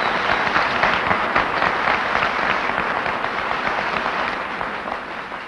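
Audience applauding: dense clapping from a crowd that fades out near the end.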